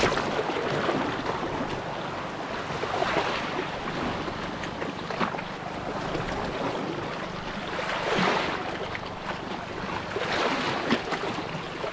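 Sea waves washing and splashing against a rocky shoreline, surging several times, with wind on the microphone.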